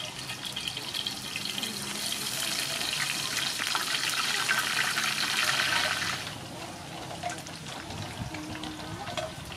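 Battered shrimp fritter sizzling in deep hot oil in a wok: a dense hiss with fine crackles. It builds over the first few seconds and cuts off suddenly about six seconds in.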